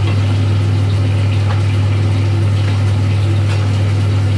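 Steady, loud low electric hum, with faint sizzling from meat frying in a pan and a few clicks and scrapes of a spatula.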